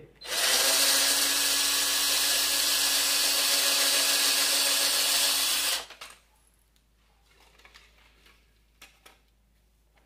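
Cordless drill-driver running steadily for about five and a half seconds as it backs the screws out of a switchboard cover plate, then stopping. A few faint clicks and knocks follow.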